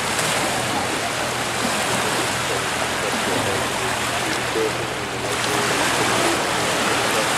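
Boat wake washing and breaking onto a shallow beach as a steady rushing of water, with a faint low steady hum underneath.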